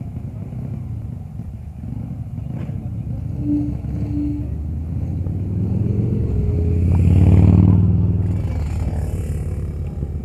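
Tuned drag-race motorcycle running flat out down the strip. Its engine note swells to a loud peak as it passes, about three-quarters of the way in, then fades away. Two short beeps come just before the halfway mark.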